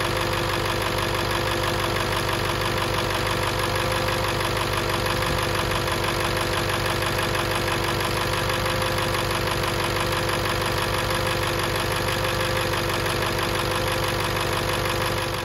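Ford 7.3 Powerstroke turbo-diesel V8 idling steadily, running on a newly installed fuel bowl.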